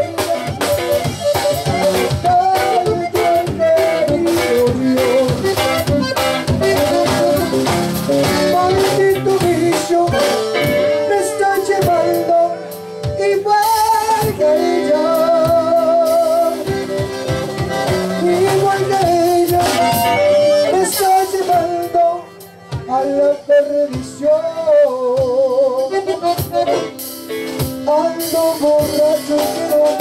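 A live conjunto band playing: button accordion carrying the melody with quick trills, over bajo sexto, electric bass and drum kit. The music breaks off briefly a little past two-thirds of the way through, then comes back in.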